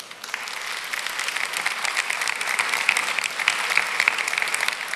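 Audience applauding, the clapping swelling over about the first second and then holding steady.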